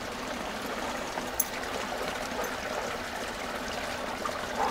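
Steady trickle of running water flowing into a garden koi pond.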